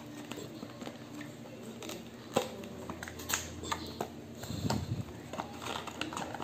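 Handling noise from a small cardboard product box being turned over and its end flap opened over bubble wrap: scattered light clicks and rustles, with one sharper click about two and a half seconds in and a patch of rubbing noise near the end.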